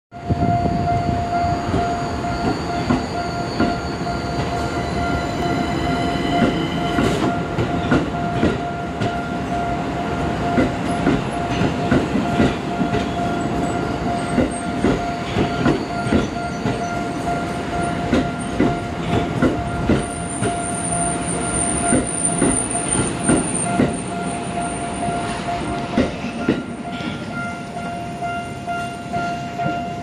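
Tokyo Metro Ginza Line 1000-series train rolling slowly over a level crossing, its wheels clacking regularly over the rail joints, while the crossing's warning alarm sounds as a steady tone. A high wheel squeal sets in about two-thirds of the way through and stops a few seconds later.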